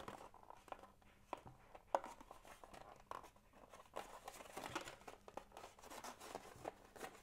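Faint handling of a small cardboard product box and its molded pulp insert as it is opened by hand: light rustling and scraping with a few soft clicks, the sharpest about two seconds in.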